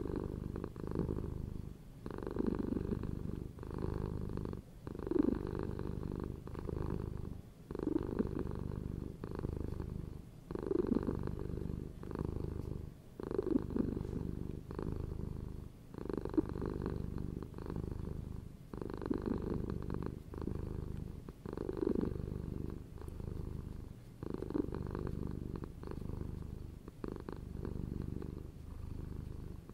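Domestic cat purring steadily, swelling and easing with each breath about every two and a half to three seconds.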